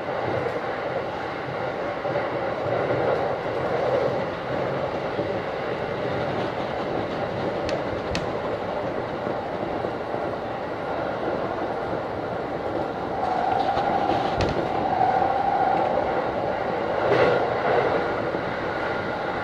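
JR Saikyo Line electric commuter train running at speed, heard from the front of the lead car: steady rolling noise with a few sharp clicks from the wheels and rails. A steady tone sounds for a few seconds just past the middle.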